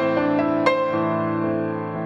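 Background piano music: soft, slow notes that ring and fade, with a new chord struck about two-thirds of a second in.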